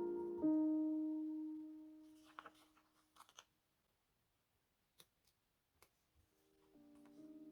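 A soft lofi piano chord fades away, leaving a few faint clicks and rustles of paper and journaling supplies being handled; the piano comes back in softly near the end.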